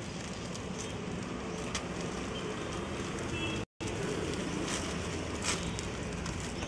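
Steady street and traffic noise, with a plastic bag crinkling now and then as it is handled. The sound cuts out briefly just before four seconds in.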